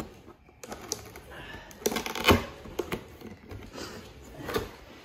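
Cardboard box being handled and its top flaps pulled at by hand: an irregular run of taps, knocks and scrapes, the loudest knock a little past two seconds in.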